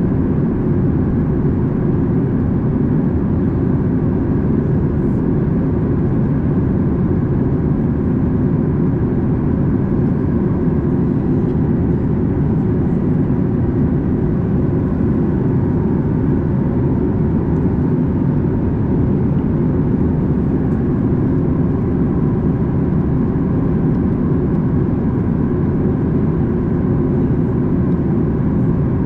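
Steady cabin noise inside a Boeing 737 MAX 8 in flight: a low, even rush of airflow and CFM LEAP-1B engine noise, with a few faint steady tones above it.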